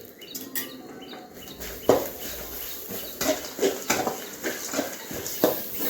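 A metal spatula scraping and knocking against a kadai as grated coconut is stir-fried in a little oil, about two strokes a second, starting about two seconds in. A bird chirps repeatedly during the first second or so.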